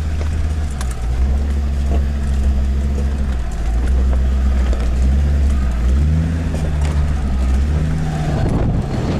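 Land Rover Discovery 2's Td5 five-cylinder turbodiesel engine pulling up a steep rocky off-road climb, heard from inside the cabin, its note stepping up and down as the revs change, with occasional knocks from the body and suspension.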